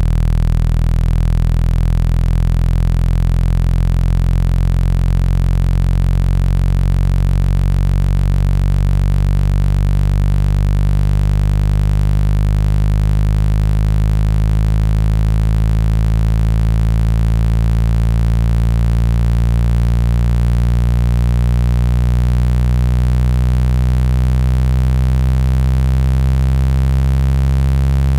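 Steady, loud, low electronic hum: a 165 Hz speaker-cleaning tone played to vibrate water and dust out of a phone speaker.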